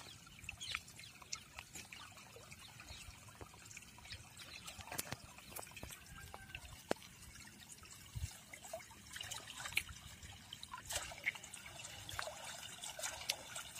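Shallow water trickling through a gap cut in a flooded rice field's earth bank, with scattered small splashes and clicks as hands work in the water.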